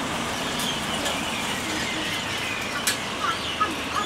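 Steady background noise of an open-air street-food stall with faint high chirps, and a few short sharp clicks about three seconds in, the first the loudest.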